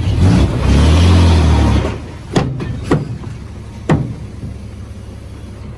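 Heavy diesel engine of earthmoving machinery running hard for about two seconds, then dropping back. Three sharp knocks follow, the first two close together and the third a second later.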